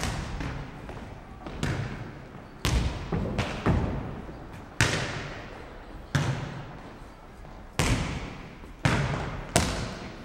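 Futnet ball being kicked and bouncing on a wooden sports-hall floor during a rally: a series of about ten sharp thuds at irregular intervals, each echoing in the hall.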